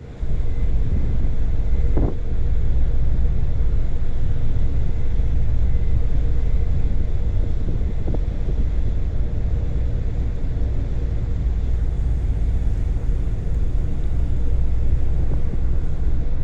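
Wind buffeting the microphone in a steady low rumble, with faint steady tones underneath and a couple of short knocks, about two seconds in and again around eight seconds.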